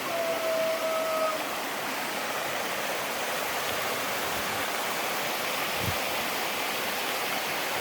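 Steady rush of water from a mountain stream or waterfall. In the first second and a half there is a brief steady whistle-like tone.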